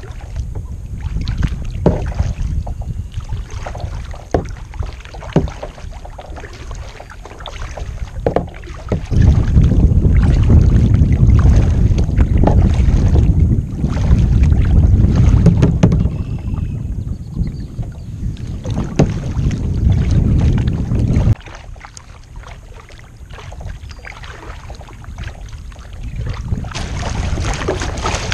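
Kayak paddling: the paddle blades dip and splash in the water in repeated strokes, with drips. In the middle a loud low rumble of wind on the microphone takes over for about twelve seconds and cuts off suddenly, and near the end water splashes and hisses along the kayak's bow.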